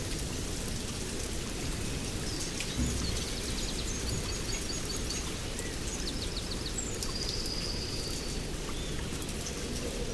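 Small birds calling over a steady rushing background noise: a quick trill of repeated high notes, a few short chirps, then one held high whistle.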